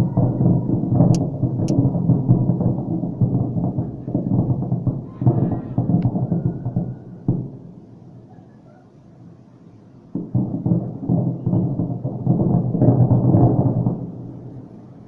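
Fireworks salute: dense volleys of deep booming shell bursts, easing into a lull about halfway through, then a sudden new run of bursts about ten seconds in that fades near the end.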